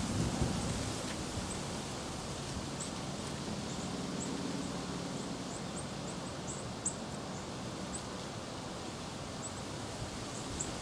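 Quiet outdoor field-edge ambience: a steady hiss of air and rustling, with faint, very high, short chirps scattered irregularly throughout and one soft click about seven seconds in.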